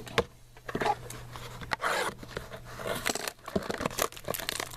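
Trading cards and their pack wrapper being handled, with a series of short crinkling rustles and clicks.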